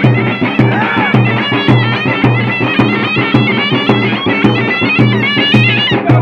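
Traditional Tunisian folk music: large double-headed drums beaten with sticks in a steady, driving rhythm, under a shrill, reedy wind instrument playing a wavering, ornamented melody.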